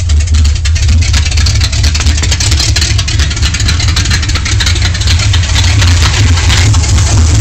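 Chevrolet V8 of a 1978 K5 Blazer running steadily at idle, a loud, low, even rumble.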